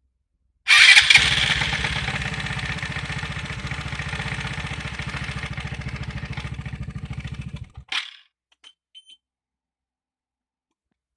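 Piaggio MP3 Yourban 300 scooter's electric starter cranking the engine with a fast, even pulsing for about seven seconds, then cutting off abruptly, followed by a click and two faint ticks. It belongs to the scooter's intermittent no-start fault, which the owner traces to the starter relay losing its signal.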